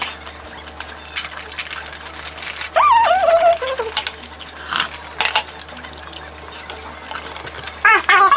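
Plastic film on an individually wrapped cheese slice crinkling in irregular crackles as it is peeled off. A short falling hummed 'mmm' comes about three seconds in, and another near the end.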